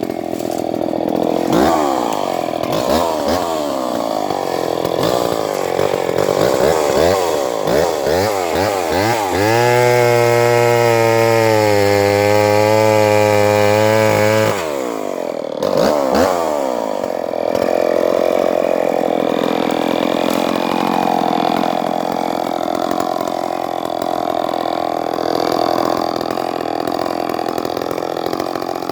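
Vintage Skil 1629 68cc two-stroke chainsaw cutting stringy-bark gum wood, its engine pitch rising and falling under load. About ten seconds in it holds a steady high pitch for some five seconds, drops off abruptly, then climbs back and runs unevenly in the cut.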